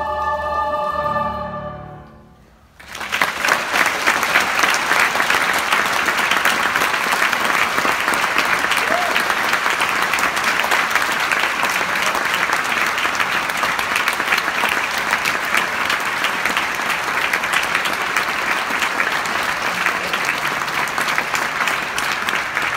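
A choir and piano hold a final chord that fades out about two and a half seconds in. Then the audience applauds, a dense, steady clapping.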